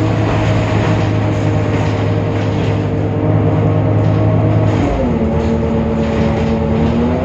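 Temsa Avenue LF city bus's DAF PR 228 diesel engine and ZF Ecolife automatic gearbox running, a steady drone with a whine on top. About five seconds in the pitch drops and holds lower, then rises back up near the end.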